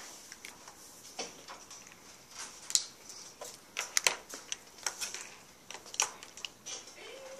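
Irregular small clicks, taps and short scratchy strokes of highlighters and pens on paper and a tabletop, the sharpest about three, four and six seconds in.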